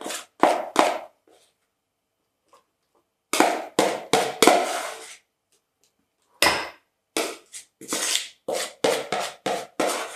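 A kitchen utensil scraping and knocking against the inside of a mixing bowl as thick mascarpone cream is scraped out into a piping bag. A quick run of short, sharp scrapes and knocks comes in three bursts with short pauses between.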